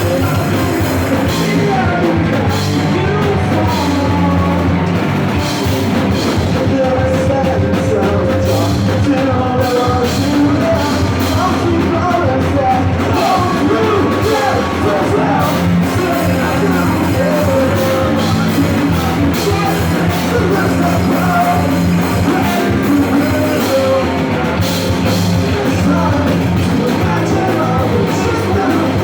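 Rock band playing a song live, with a lead vocal sung over the band at a steady, loud level.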